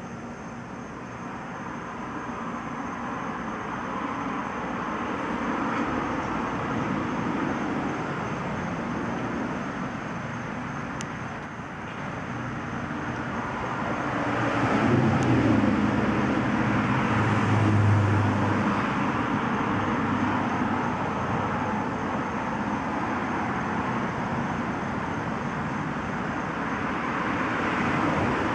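Steady road-traffic noise, swelling as a motor vehicle passes about halfway through with a low engine tone, then easing off again.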